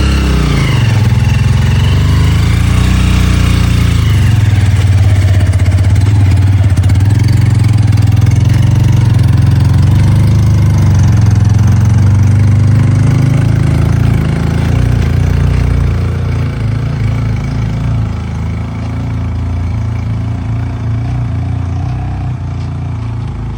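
Motorcycle engine running under a load up a steep slope. It revs up and down in the first few seconds, holds a steady pull, and grows fainter after about fifteen seconds.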